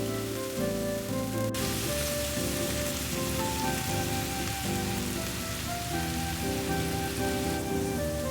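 Food sizzling in a frying pan, the sizzle jumping suddenly louder about a second and a half in, over background music with sustained notes.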